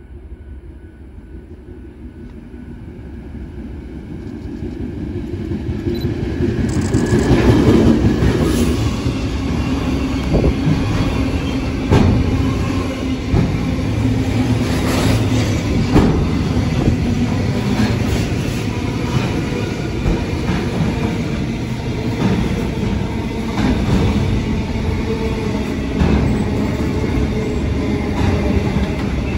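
Container freight train approaching and then running past on the near track. The rumble builds to its loudest about seven seconds in as the front of the train passes, then holds as a steady rumble of container wagons with scattered clacks of wheels over the rail joints.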